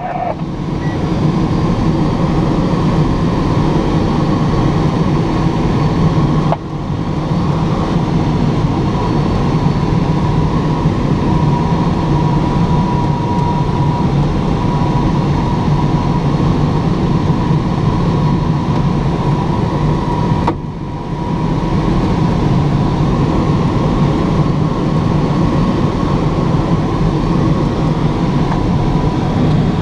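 Steady rush of airflow around the cockpit of a Schleicher K8 glider in flight, with a faint steady tone running through it. The rush drops sharply for a moment twice, about a third of the way in and again about two-thirds in.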